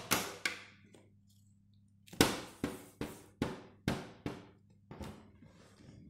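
Background music: a run of sharp struck notes, each ringing out briefly, about two or three a second with a pause about a second in, over a faint low steady hum.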